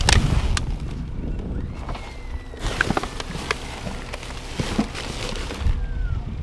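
Plastic trash bags rustling and crinkling as they are pushed around inside a dumpster, with scattered knocks and clicks. Near the end come footsteps on concrete.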